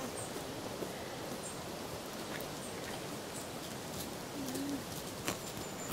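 Alpaca giving one short, soft, low hum about three quarters of the way through, over a steady faint hiss with a few light clicks.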